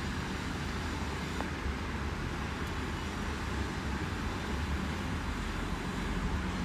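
Steady background rumble with a hiss over it, unchanging throughout.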